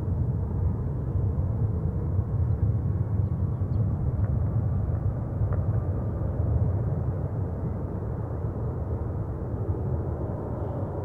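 Steady low rumble of jet airliner engines, constant in level throughout.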